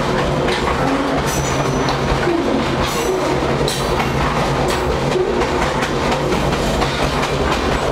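Moving freight train heard from aboard a rail car: a loud, steady rumble and rattle of the car's steel body and wheels on the track, with irregular metallic clanks and a brief high squeal about a second and a half in.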